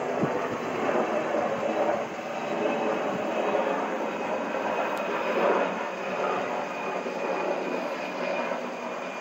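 Helicopter flying overhead: a steady noise of its engine and rotor.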